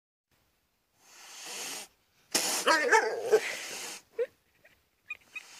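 Two breathy animal blasts: a short huff about a second in, then a louder, longer one with a wavering cry in it.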